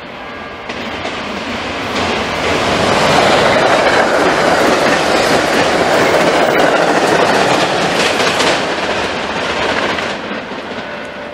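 A passenger train passes through the station at speed. A loud rushing rail noise builds over the first few seconds, peaks as the cars go by with the wheels clacking over the rail joints, and then fades as the train recedes.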